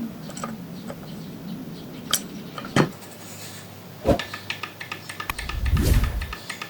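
Small metal sewing-machine parts, likely the shuttle and bobbin case, handled and fitted: irregular metallic clicks and clinks with a few sharper knocks, then a brief low rush near the end.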